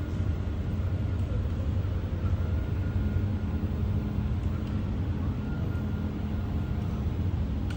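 Mold laser welding machine running with a steady low hum and a few faint steady tones above it, with a single short click near the end.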